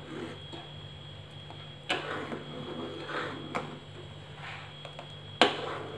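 Metal ladle stirring thick rice kheer in a pan: soft scraping through the kheer with a few sharp knocks of the ladle against the pan, the loudest about five and a half seconds in. A steady low hum runs underneath.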